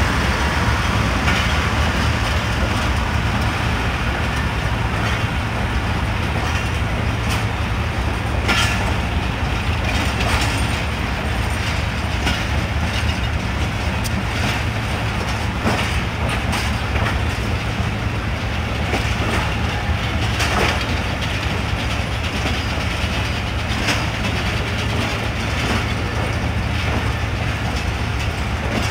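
Passenger train coaches rolling past slowly as the express pulls out. There is a steady low rumble and a clack of wheels over rail joints every few seconds.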